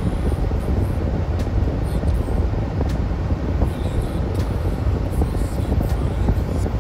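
Steady road and engine noise heard inside a car cruising on a freeway: a low rumble with tyre hiss over it.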